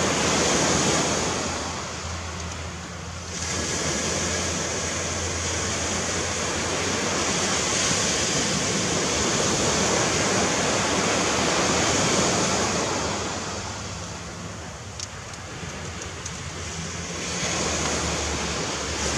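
Ocean surf washing on the beach: a steady rushing noise that swells and eases, dropping back about two seconds in and again around fourteen seconds in before building up once more.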